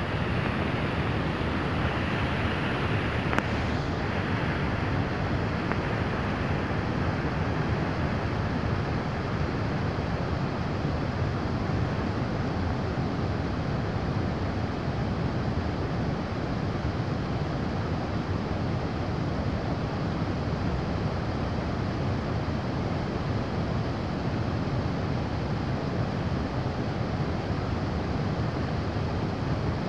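Steady rushing of muddy floodwater flowing through a shallow river, with wind buffeting the microphone. One brief click comes a little over three seconds in.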